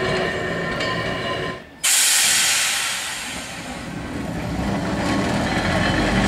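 Manx Electric Railway tramcar and trailer running over curved track, with thin steady squeal tones from the wheels. After a sudden break about two seconds in, a loud hiss fades away and the low rumble of Car 2 and its trailer approaching on the rails grows louder.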